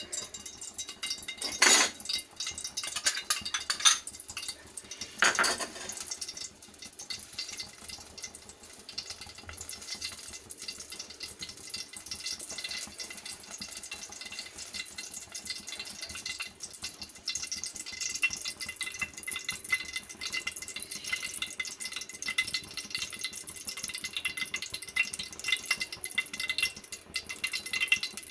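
Ghee heating in a pan with a steady fine crackle that grows a little denser toward the end. Two louder pan clatters come in the first six seconds.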